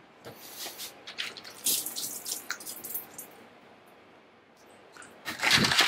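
Wet plastic toys being handled, with light clicks and knocks as they touch and drips of water falling from them, then a louder rustle near the end.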